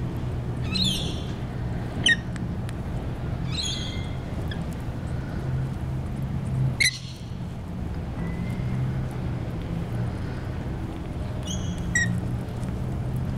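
Rainbow lorikeets giving short, harsh screeches, about five spaced over several seconds, the loudest around the middle, over a steady low hum of street traffic.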